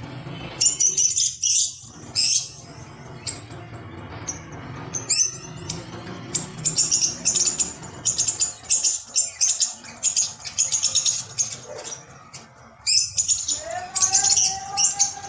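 Rubber squeeze toys squeaking in runs of short, high-pitched squeaks as they are squeezed by hand. A steadier held tone comes in near the end.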